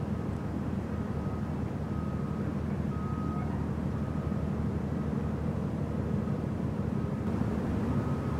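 Steady low engine rumble, with a faint reversing alarm beeping about once a second.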